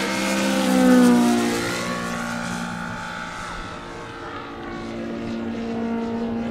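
Radial engine of a large RC scale Yak-55M aerobatic model airplane running at full power in flight. It is loudest about a second in, its pitch dropping as it passes, then swells again near the end.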